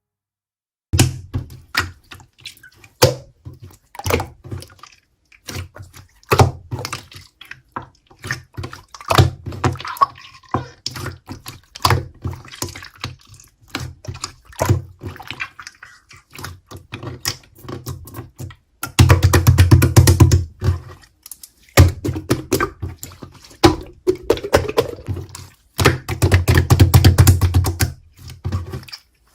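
Slime being squished and poked by hand, a run of wet clicks and pops, with two stretches of fast, dense squelching, one about two-thirds in and one near the end.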